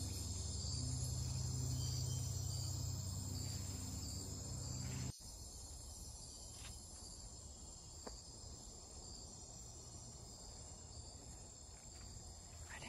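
A faint, steady, high-pitched chorus of forest insects. A low background-music drone runs underneath at first and cuts off abruptly about five seconds in.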